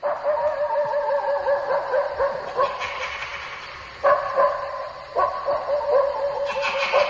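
A pack of wolves yipping and howling together in a dense, wavering chorus, standing in for a werewolf pack, over steadily chirping crickets. The chorus starts abruptly, eases, and swells again about four seconds in.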